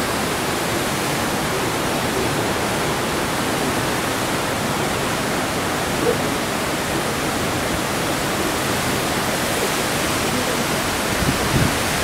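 Waterfall, a steady, even rush of falling water that does not let up.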